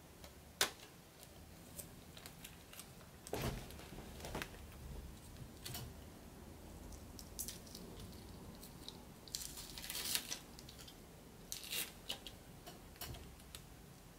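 Handling of an estrogen skin patch and its plastic backing liner as the patch is pressed onto the skin: faint crinkles, small clicks and short rustling scrapes, with the loudest rustle about ten seconds in.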